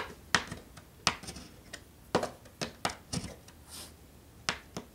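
Small hand tool pressing track nails down into a model railroad's roadbed: a series of sharp, irregularly spaced clicks and taps.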